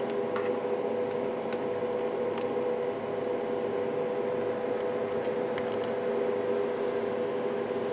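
A steady electrical hum with an even hiss behind it, and a few faint small clicks.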